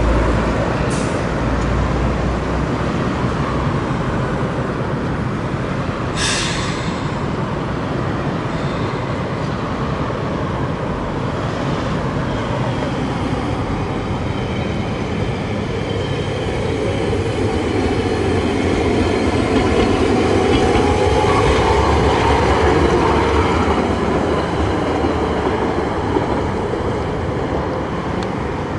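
Hiroshima Electric Railway streetcar no. 712 pulling away from the stop and running off along the street track, its motor and wheels on the rails heard over road traffic. A short hiss comes about six seconds in, and the sound swells about twenty seconds in.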